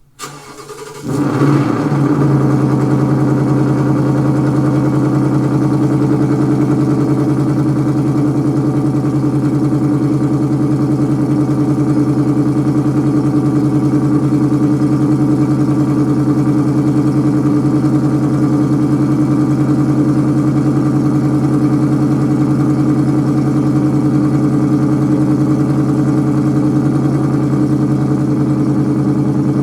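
Ford Mustang GT's V8 engine coming in about a second in, then idling steadily.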